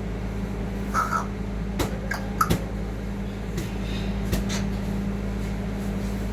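African grey parrot giving two brief squeaks and a few sharp clicks over a steady low hum.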